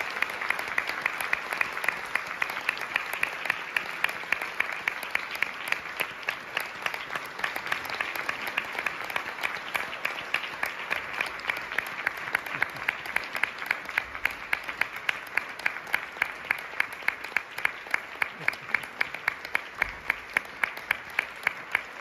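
Audience applauding, with one pair of hands clapping close by at a steady pace of about three claps a second.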